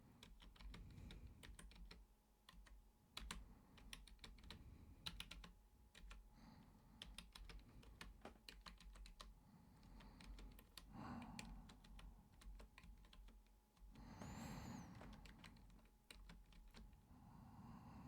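Computer keyboard typing: quick, irregular keystroke clicks, with a brief louder rush of noise about fourteen seconds in.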